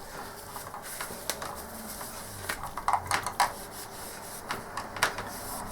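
Antibacterial wipe rubbed along a computer mouse's cable, with scattered sharp plastic clicks and taps from handling the mouse and cable, a quick cluster of them about halfway through.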